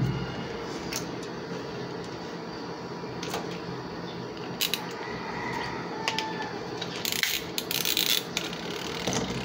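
Small clicks, taps and scratchy rustles of hands handling wires and a plastic connector inside a washing machine's rear panel, with a brief cluster of scratching noises about seven to eight seconds in, over a steady low hum.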